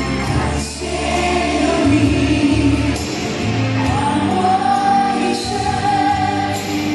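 Music: a song sung by a group of voices, with instrumental backing and a steady bass line.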